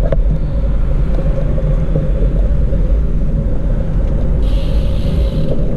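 Loud, steady low rumble of wind and road noise on the microphone during a bicycle ride, with a brief hiss about four and a half seconds in.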